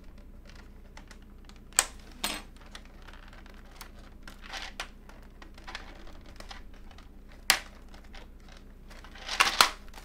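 Thin plastic keycap trays, held together by staples, being pried apart and handled: sharp plastic clicks and clacks now and then, a stretch of crinkling in the middle, and a quick run of clicks near the end.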